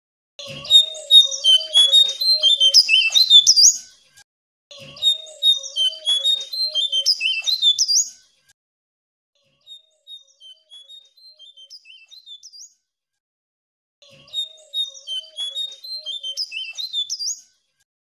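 Jongkangan (cingcoang coklat) songbird singing: three long phrases of rapid, jumbled high twittering notes, each with a low wavering note running under it, and a quieter run of scattered notes between the second and third phrases.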